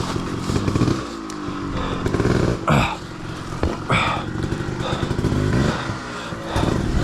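Two-stroke dirt bike engine running and being revved in short blips, its pitch rising and falling several times. Two short, louder noisy bursts come about three and four seconds in.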